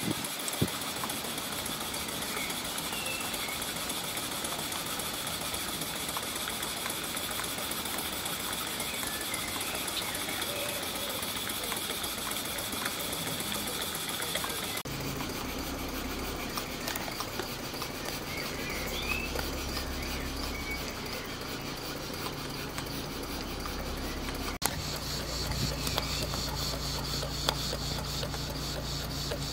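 Stuart Victoria model horizontal steam engine running under steam: a steady hiss of steam with a fast, light mechanical patter from the running gear. About halfway through a low rumble joins it, and the sound changes abruptly twice.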